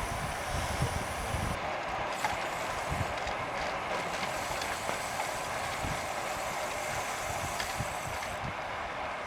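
Bicycle rear hubs buzzing as riders coast, a fast steady ratcheting over tyre and wind noise.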